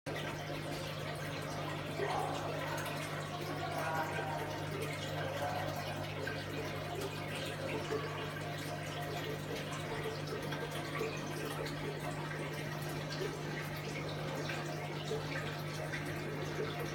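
Big aquarium's filter running: water trickling and splashing steadily over a low, steady hum from the pump.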